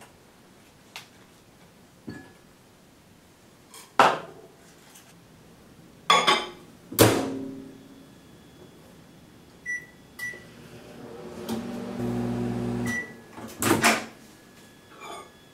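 Metal mixing bowls and measuring cups knocked and set down on a counter: a few separate clunks and one clink that rings on. About ten seconds in a kitchen appliance gives two short electronic beeps, hums steadily for a second or two, beeps again, and more clatter follows.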